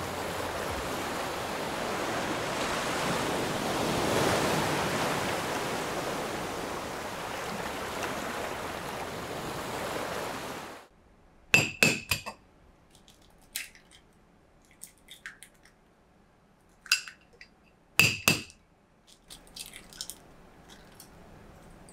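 Ocean surf washing steadily, swelling about four seconds in and stopping abruptly about eleven seconds in. Then a scattered run of short, sharp clinks and taps as eggs are knocked against a glass mixing bowl and cracked into it.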